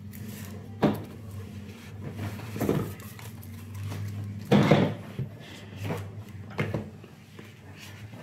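A cardboard smartphone box being opened by hand: a sharp tap about a second in, then rubbing and scraping as the lid is worked off, loudest near the middle. A low steady hum runs underneath.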